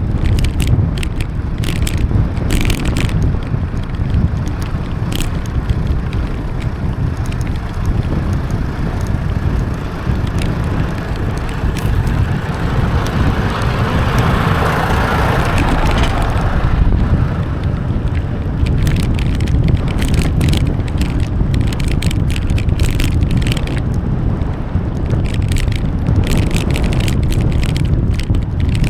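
Wind buffeting the microphone of a camera on a moving bicycle, with tyre and road noise underneath and scattered clicks. A hiss swells and fades about halfway through.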